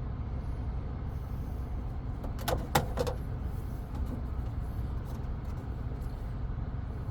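Steady low rumble of the pickup's idling engine and air-conditioning blower, heard inside the cab. About two and a half seconds in come three quick sharp clicks or taps.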